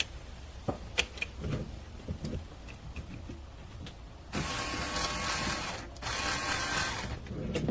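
A few small clicks and knocks, then a 3.6V cordless electric screwdriver's motor and gearbox whirring steadily for about three seconds, with a short break partway through.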